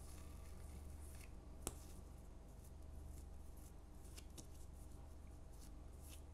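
Faint handling sounds of hands rolling up a strip of bread dough on a silicone baking mat: soft rustles and light taps, with one sharper click about a second and a half in, over a steady low hum.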